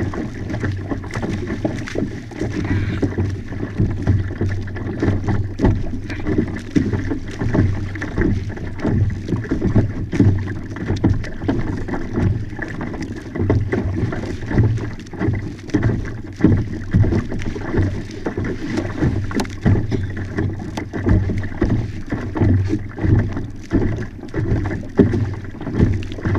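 Water rushing and splashing along the hull of a Hobie Outback pedal-drive kayak under way, with wind on the microphone, an uneven noise that swells and dips continually.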